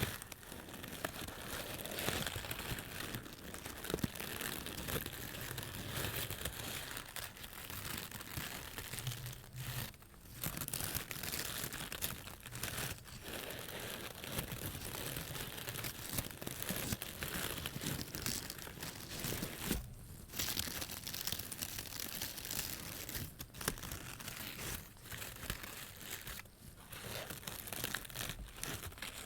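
A crinkly material being crumpled and handled close to the microphone, with dense crackling that runs nearly continuously and pauses briefly twice.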